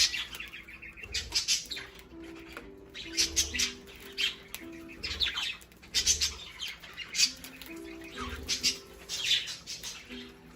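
Pet budgerigars squabbling, giving harsh squawks and chirps in short clusters about once a second.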